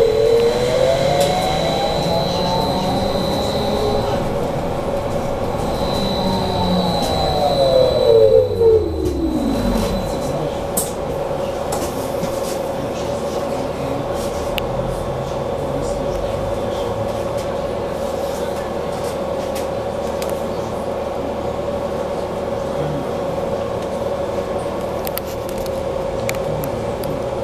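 Onboard sound of a BKM 43300D trolleybus under way: the electric traction drive whines, rising in pitch as it pulls away and speeds up over the first few seconds, then falling in pitch until about ten seconds in as it slows. A steady electric hum and running noise go on for the rest.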